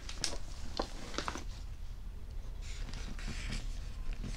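Hands handling a first-aid grab bag: a few soft clicks and knocks in the first second and a half, then a rustle of fabric and plastic pouches, over a steady low hum.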